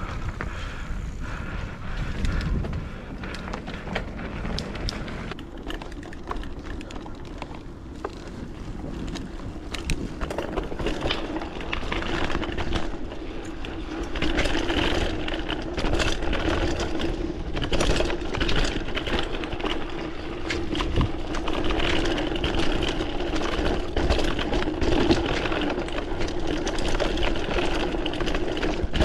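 Mountain bike riding over a rough dirt trail: steady rattling and knocking from the bike over bumps, with wind noise on the microphone and a steady hum that grows louder about a third of the way in.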